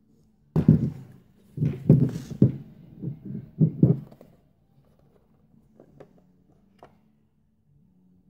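Thuds, knocks and clatter as the plastic case of an EEVblog BM235 multimeter is pried and pulled apart by hand: a dense run of thumps lasting about three and a half seconds, then a few light clicks. A faint steady hum sits underneath.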